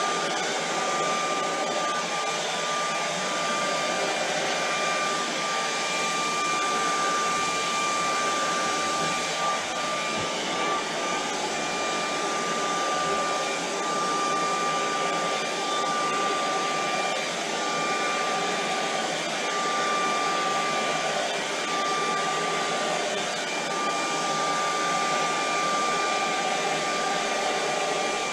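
Handheld blow dryer running steadily, a rushing of air with a steady whine over it, blowing wet poured acrylic paint across a canvas.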